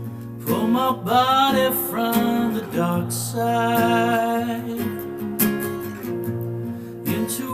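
Strummed acoustic guitar with a man singing over it, a slow song played live.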